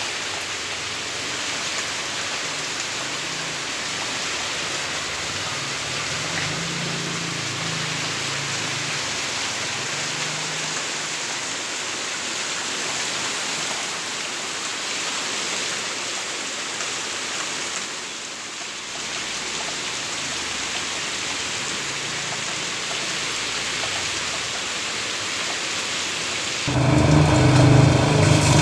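Steady rain falling on a road, an even hiss of heavy rain. Near the end a louder, lower sound with steady tones cuts in suddenly over the rain.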